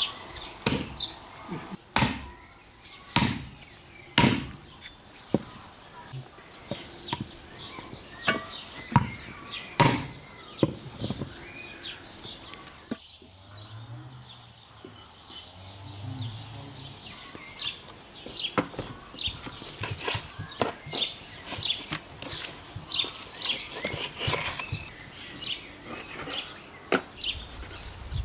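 Irregular sharp knocks and taps, a second or two apart at first and coming faster in the second half, with birds chirping in the background.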